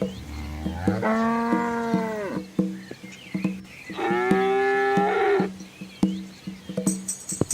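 Cows mooing: two long moos, each about a second and a half, a few seconds apart.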